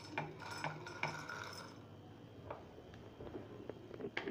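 Dry roasted gram (phutana) poured into a steel grinder jar, the hard split pieces rattling and clinking against the metal for about the first second and a half, then a few scattered clicks as they settle.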